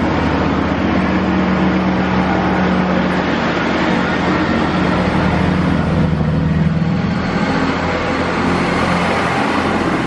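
Northern Class 158 diesel multiple unit pulling away close by, its underfloor diesel engines running under power with a steady drone, mixed with wheel and rail noise. The drone thins out after about seven seconds as the train moves off.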